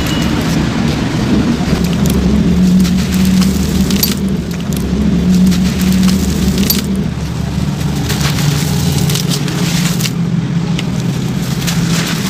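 Waterlogged sand-cement chunks crumbled and squeezed by hand in a basin of water: dense crackling and crunching of grit with wet splatters as pieces drop into the water, over a steady low hum.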